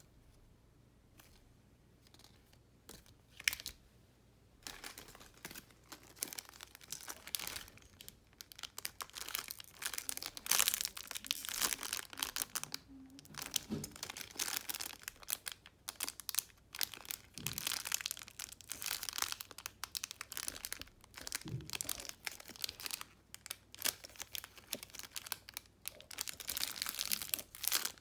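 Plastic packaging crinkling and rustling as it is handled. After a few soft clicks, the crinkling starts about five seconds in and continues irregularly.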